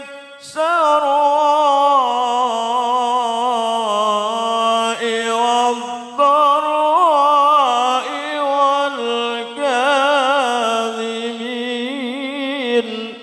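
A man reciting the Quran in melodic tilawah style into a microphone: a single voice holding long, ornamented phrases with wavering pitch, pausing briefly for breath a few times and stopping near the end.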